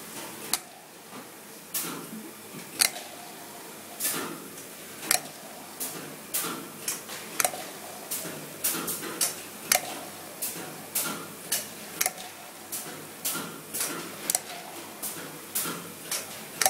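Hommak yogurt cup filling machine running, with sharp mechanical clacks about once a second and lighter clicks and clatter in between as it cycles through its filling strokes.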